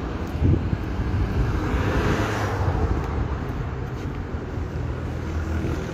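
Road traffic noise, a steady low rumble that swells briefly about two seconds in.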